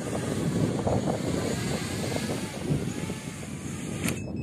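Wind buffeting the microphone, an uneven low rumble, with a sharp click about four seconds in.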